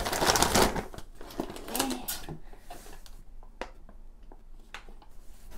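Plastic food packaging crinkling and rustling as groceries are handled and lifted out of a shopping bag, busiest in the first second, then a few light clicks and rustles.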